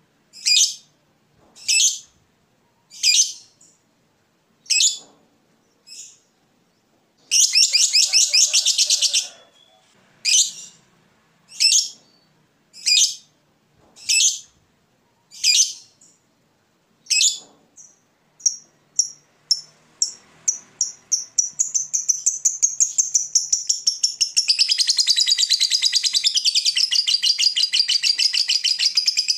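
Fischer's lovebird calling: sharp high chirps about once a second, broken by a short rapid trill about a quarter of the way in. Past halfway the chirps speed up and merge into a long, fast, unbroken rattling trill, the lovebird's long 'ngekek'.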